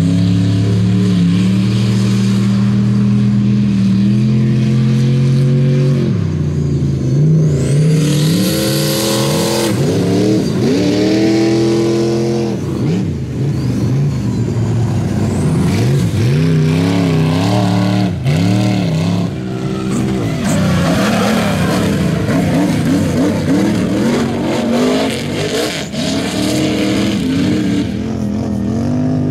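Off-road race vehicle engine running hard: held at steady high revs for about six seconds, then dropping and surging in repeated rises and falls in pitch as the throttle is worked.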